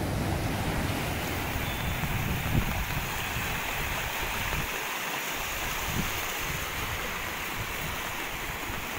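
Fast-flowing muddy floodwater rushing and churning in a steady, noisy rush, with wind rumbling on the microphone during the first half.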